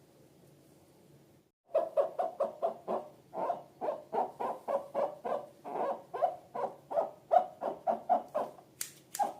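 Slime being squeezed and worked by hand: a rapid run of short, hollow squelching pops, about four a second, starting suddenly after a brief cut, with a few sharp clicks near the end.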